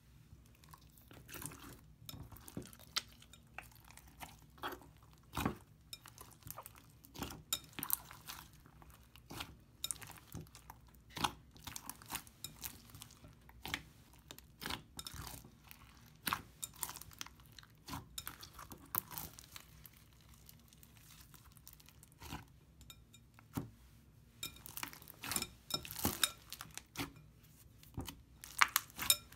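Thick slime being pressed, poked and kneaded by hand in a glass bowl, giving irregular sticky pops, clicks and squelches. The sounds ease off for a couple of seconds about two-thirds of the way through.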